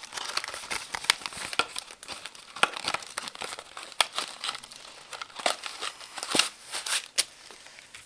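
Packaging crinkling and rustling in irregular bursts, with sharp crackles, as cigar sample bags are handled and opened.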